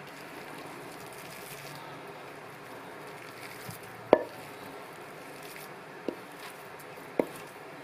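Thick cassava mixture being scraped from a bowl into a greased metal cake tin. There is soft scraping throughout, a sharp knock about four seconds in and two lighter knocks near the end.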